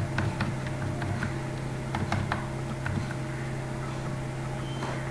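Computer mouse clicking: a handful of short, sharp clicks, some in quick pairs, over the first three seconds, then none. A steady low hum runs underneath.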